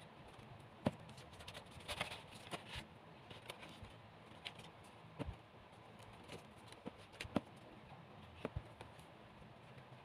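Scattered light knocks and clicks of craft parts being handled: a jute-rope-wrapped pole and a white plastic cup base being fitted together by hand. The sharpest taps come about a second in and just past seven seconds.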